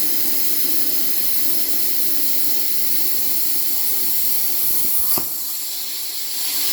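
CNC plasma cutter torch hissing steadily as it cuts 7 mm steel plate. About five seconds in there is a short click and the hiss drops for about a second, then comes back.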